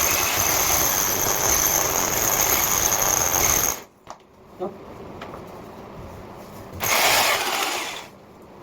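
Electric drill driving a 65 mm concrete hole saw into a wall: grinding noise with a steady high whine for about four seconds, stopping abruptly, then a second, shorter burst of about a second near the end.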